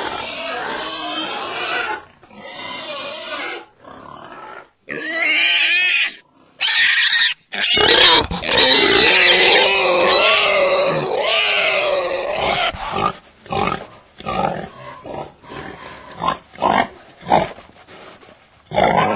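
Wild boar vocalising in several spliced recordings: pitched calls, then a long loud stretch of high, wavering squeals from about 8 to 13 seconds in, then a run of short separate grunts to the end.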